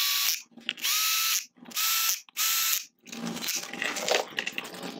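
Small cordless power driver running in the little timing-belt cover bolts in four short runs, each starting with a rising whine that settles to a steady tone. After about three seconds it stops, leaving light clicks and handling noises.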